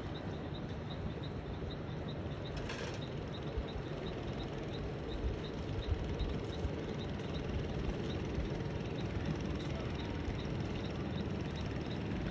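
A steady low motor rumble, like an engine idling, with a regular high chirp repeating about two or three times a second over it. A brief hiss sounds about three seconds in.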